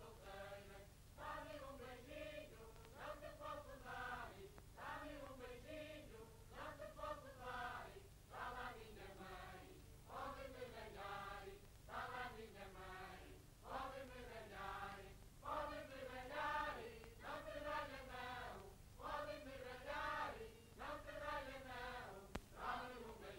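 A group of voices singing a slow, chant-like choral melody in short repeated phrases, faint, over a steady low hum from the old film soundtrack.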